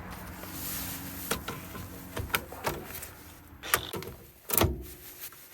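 Five or so sharp clicks and knocks of tools and parts being handled during CV axle work, over a steady low hum.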